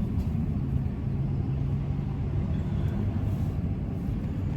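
A vehicle's engine running at idle: a steady low rumble.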